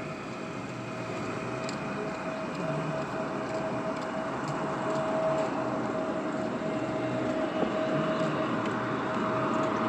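Airbus A320neo jet on final approach, a distant engine noise with a steady whine on one pitch, growing slowly louder as the aircraft nears.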